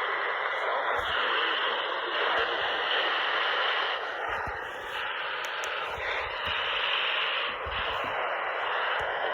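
Steady static hiss from a radio receiver on a weak signal, kept within a narrow band like a broadcast's audio.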